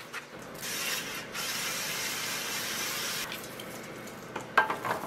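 Aerosol nonstick cooking spray hissing steadily onto a metal sheet pan for about two and a half seconds. Near the end, a few sharp clacks as asparagus spears are set down on the pan.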